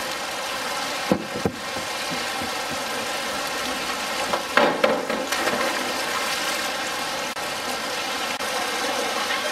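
A diving springboard knocking under a diver, with two light knocks about a second in, then a cluster of louder clatters as she presses the board and takes off. A steady hiss of background noise runs underneath.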